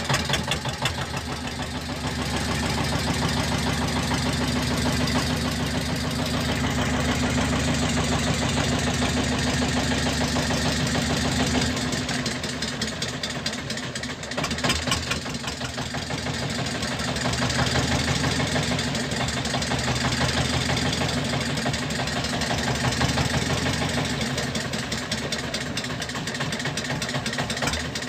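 A boat engine running steadily, a fast even throb that swells a little in loudness now and then.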